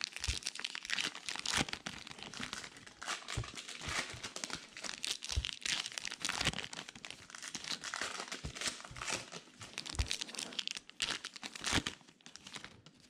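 2020 Gypsy Queen baseball card packs being torn open, their wrappers crinkling and rustling in a dense, irregular run with occasional sharp clicks.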